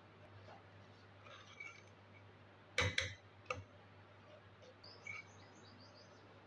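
A slotted metal spoon clinks against the side of an aluminium cooking pot, three quick knocks a little under three seconds in, while vermicelli is stirred into milk. Faint bird chirps come and go behind it.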